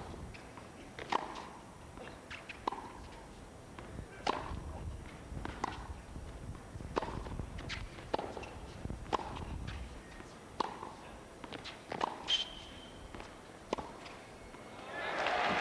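A long baseline tennis rally: racket strikes on the ball, about one every second to second and a half, with fainter bounces and footwork on the hard court between them. Near the end the point finishes and the crowd breaks into applause.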